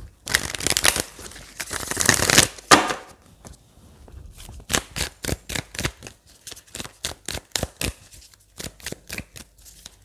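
Tarot cards being shuffled by hand: a dense rustle of cards for about two seconds near the start, then a run of quick sharp card snaps, about four a second, through the second half.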